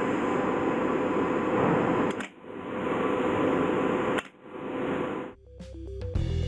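Steady machine-room noise with a hum from running plant equipment, broken by two sharp clicks about two seconds apart, each followed by a short dip. Music comes in near the end.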